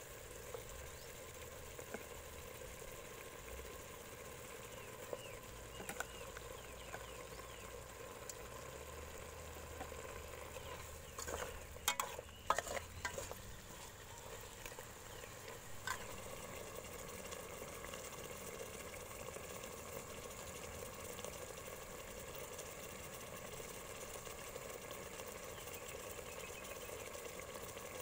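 Fish in broth simmering in an aluminium pot, a steady low hiss, with a metal ladle knocking and scraping against the pot in a quick cluster about halfway through and once more a few seconds later.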